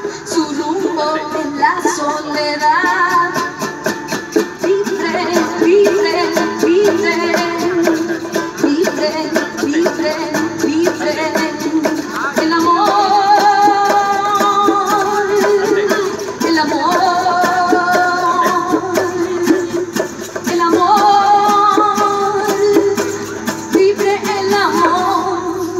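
Live acoustic song: a strummed guitar with a voice singing the melody in long, wavering phrases.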